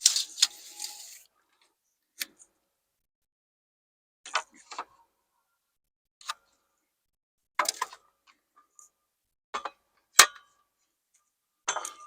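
Light clicks and knocks from handling hand tools and lumber during wood framing: a brief rattle at the start, then single sharp ticks every second or two.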